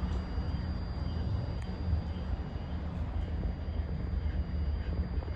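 ADL Enviro200 single-deck bus on the move, heard from inside: a steady low engine and road rumble with a thin, steady high whine over it.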